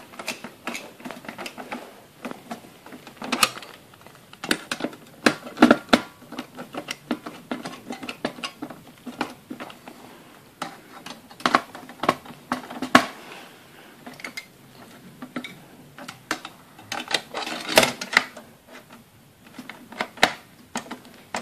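Screwdriver tightening the CPU heatsink screws inside a desktop computer case: irregular clicks and taps, a few louder ones scattered through.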